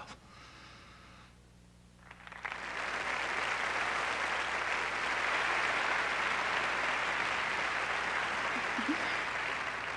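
Audience applauding: after about two seconds of near quiet the clapping comes in and holds steady.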